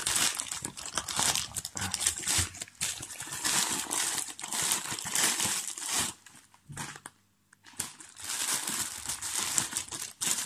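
Paper and clear plastic packaging crinkling and rustling as a parcel is torn open by hand and the plastic bag inside is pulled out. The crinkling comes in repeated bursts, with a short pause a little past the middle.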